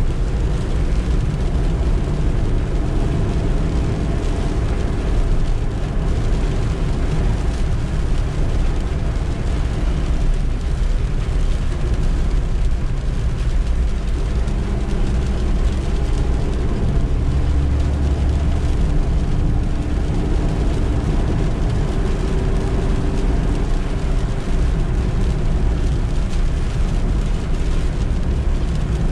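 A Suzuki EECO's 1.2-litre engine running while the van drives, with a steady low road rumble. The engine note shifts a little now and then as the speed changes.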